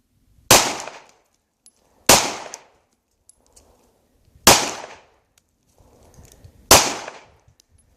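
Glock pistol fired four times, unevenly spaced about two seconds apart, each shot followed by a short echoing tail.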